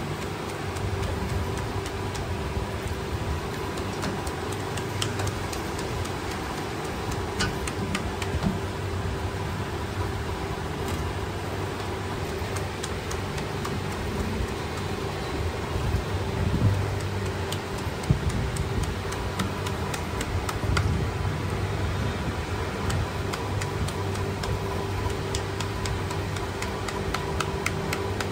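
Steady mechanical hum with a constant tone, over faint quick ticks of a knife slicing peeled melon held in a gloved hand, the pieces dropping into a steel bowl.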